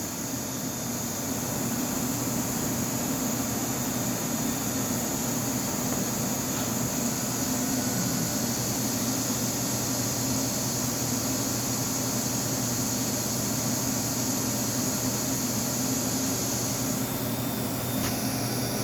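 CNC machine running with a steady mechanical hum and a high hiss; the hiss changes near the end and stops about a second before the end.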